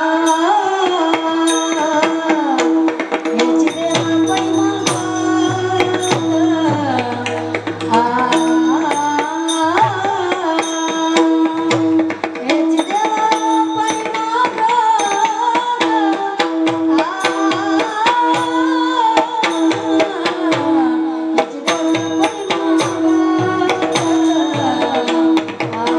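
Marathi kirtan music: a melody bending up and down over a steady drone note, with Indian hand-drum strokes played throughout.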